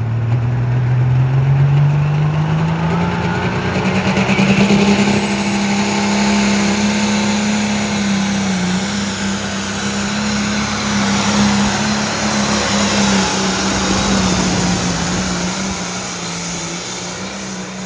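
Pro stock pulling tractor's turbocharged diesel engine at full throttle, hauling a weight-transfer sled. Its pitch climbs steeply over the first few seconds of the launch, then holds high and steady under full load.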